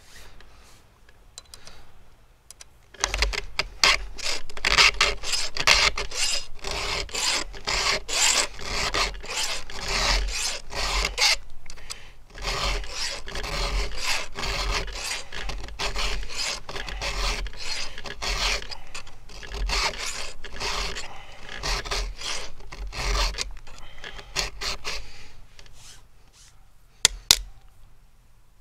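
Round file rasping across the cutters of a 3/8-pitch chainsaw chain on a Stihl MS661's bar, sharpening the teeth by hand. A quick run of strokes starts about three seconds in and tapers off near the end, followed by two sharp clicks.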